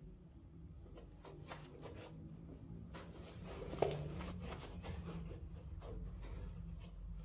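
Quiet handling sounds: light rustling and small clicks, with a slightly louder knock about four seconds in, as items are handled during a trainer unboxing.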